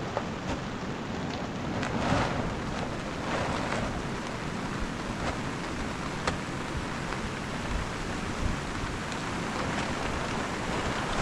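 Wind rushing over the microphone, with irregular sharp crackles and crinkling from a large plastic sheet being dragged and spread over stony ground.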